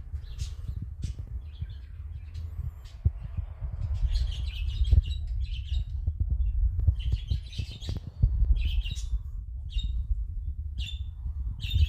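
Birds chirping in short, repeated high calls over a steady low rumble.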